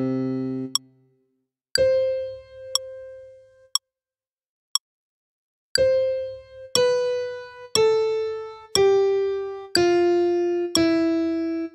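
Notation-software piano playback of a vocal range-test scale at one note per second, with a short click on every beat: a high C held for two beats, two beats of clicks alone, then a C major scale stepping down note by note from that C.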